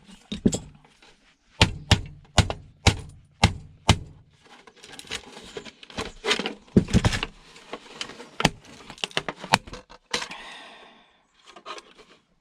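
Plastic casing of a small broadband router being prised and snapped apart by hand: a run of sharp cracks and knocks, a dozen or so, with a short scraping sound near the end.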